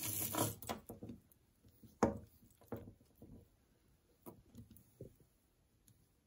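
Jewelry being handled on a table: a brief rustle at the start, a sharp knock about two seconds in as a piece is set down, then scattered light clicks and taps of beads and metal pieces.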